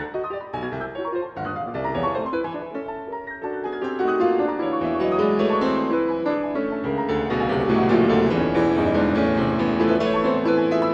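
Solo Steinway & Sons grand piano being played: quick runs of notes, then about four seconds in the playing grows louder and fuller, with thick held chords ringing together.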